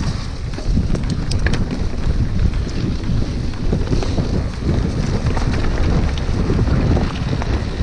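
Wind buffeting the microphone of a handlebar-mounted action camera on a mountain bike riding down a wet dirt trail, with a heavy low rumble from the tyres and the bike shaking over the ground. There are a few sharp clicks about a second and a half in.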